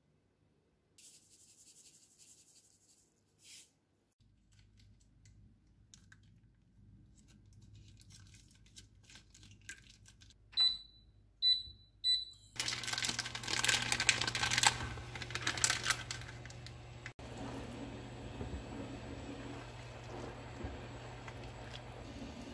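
Induction cooktop's touch controls beeping three times, each short and high, about half a second apart. The hob then switches on with a low hum and a loud hiss that settles into a steady hiss as a pan of udon broth heats.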